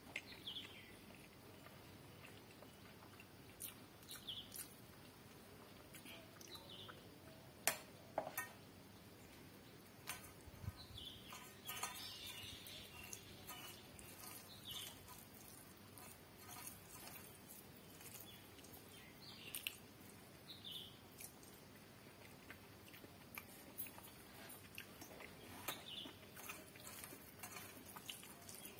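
Quiet eating sounds of rice and curry eaten by hand: soft chewing and wet mouth noises, with scattered clicks and short falling squeaks every few seconds.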